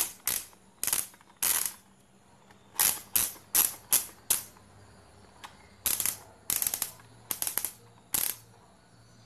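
Thermostat dial of an Akira dry electric iron turned back and forth, giving about a dozen sharp clicks in irregular groups as the thermostat switches the iron and its pilot light on and off.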